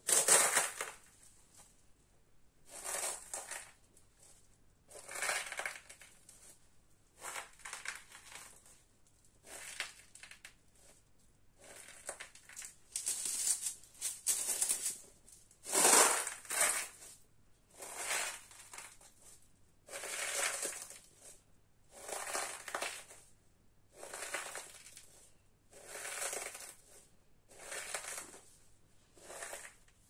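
Dry crunchy cereal being crushed under socked feet, with a crunch each time a foot presses down, about one every two seconds. The loudest crunches come right at the start and about halfway through.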